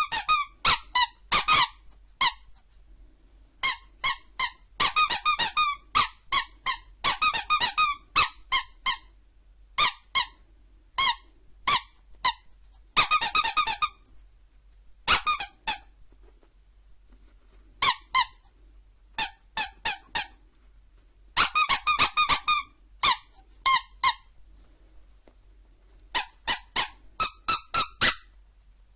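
A rubber dog squeaky toy being squeezed over and over: short, high-pitched squeaks, sometimes single and sometimes in quick runs of several, with brief pauses between.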